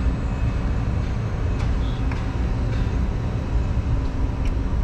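Steady low rumble of a large Engineered Air make-up air unit running with its blowers on and cooling disabled, with a few faint clicks.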